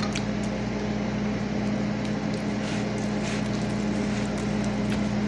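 Steady low electrical hum from a running household appliance, with a few faint soft clicks over it.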